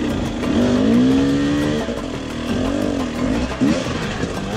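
Enduro motorcycle engine revving up and down as the throttle is opened and closed on the trail. The pitch climbs for about a second early on, drops, then rises again in shorter blips.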